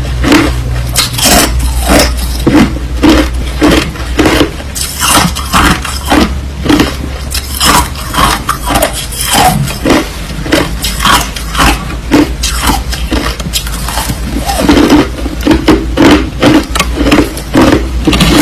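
Crushed ice being chewed close to the microphone: loud, crisp crunches, about two to three a second, with a steady low hum underneath.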